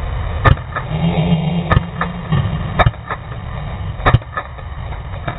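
Airsoft gun firing single shots: four sharp cracks spaced a little over a second apart, each followed by a fainter click, over a steady low rumble.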